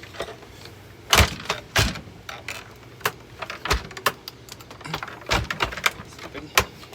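Irregular clicks, creaks and knocks from a Hoover vacuum cleaner's body being forced in an attempt to break it apart, with the sharpest knocks about a second in and just before two seconds.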